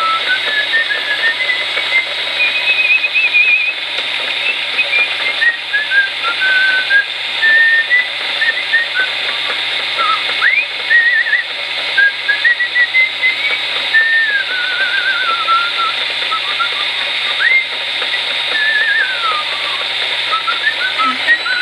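A generic Chicago Electric rotary tool running steadily while boring a hole through a rubber stopper turning in a lathe, with a person whistling a wandering tune over it.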